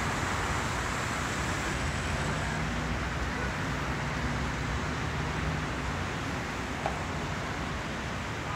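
Steady road traffic noise: a continuous rumble of cars and their tyres, with one short click near the end.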